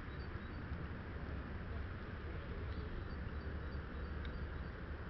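Steady wind noise buffeting the microphone, a low fluttering rumble, with a few faint short high chirps scattered through it.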